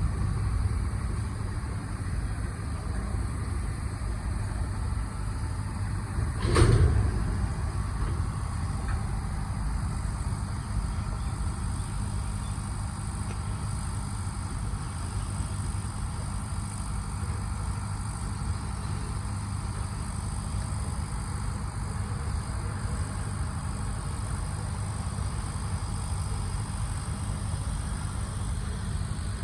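Unloaded truck's engine running steadily with a low rumble, with one brief loud knock about six and a half seconds in.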